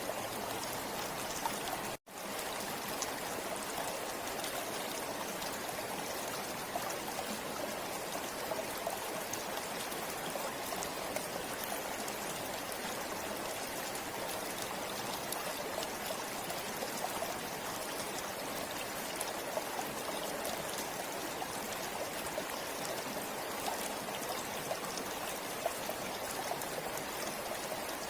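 A forest river flowing steadily: a continuous rushing of water flecked with small splashes. The sound cuts out for an instant about two seconds in.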